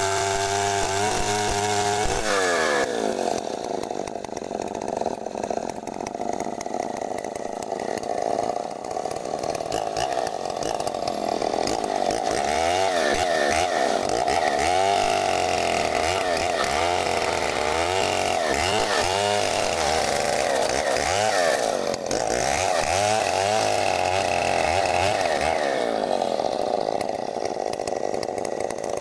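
Two-stroke chainsaw engine with a CDI ignition running continuously. It holds a steady speed, drops about two seconds in, then speeds up and slows down again and again.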